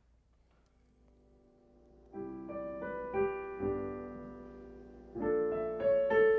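Piano playing slow, sustained chords. It comes in after a second of near silence, with a firm chord about two seconds in that slowly fades, and a louder chord about five seconds in.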